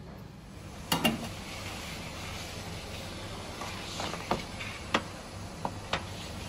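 Scattered sharp clanks of metal baking trays and a long-handled peel being worked in a deck oven, loudest as a double knock about a second in, over a steady low hum.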